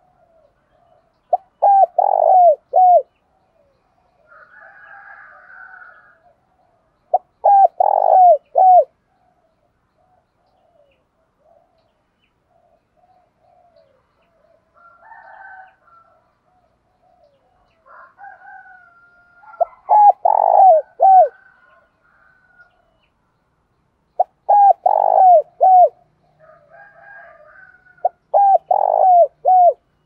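Spotted dove cooing: five loud phrases of three or four short falling notes each, repeated every few seconds. Fainter chirping of other birds fills the gaps.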